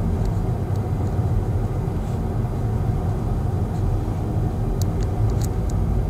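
Steady low rumble of a Kia Seltos's road and engine noise heard from inside the moving car, with a few faint clicks about five seconds in.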